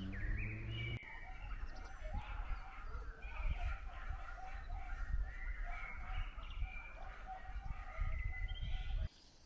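Chickens calling and clucking over a steady low wind rumble on the microphone; the rumble cuts off abruptly near the end.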